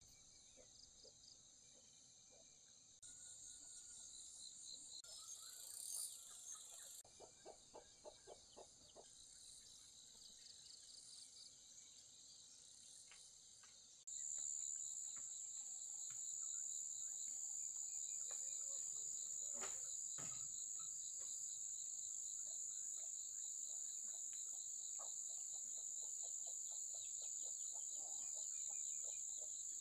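Insects, crickets among them, trilling in a steady high-pitched chorus with scattered lower chirps. The chorus changes abruptly several times and grows louder and steadier about halfway through, with a single knock shortly after.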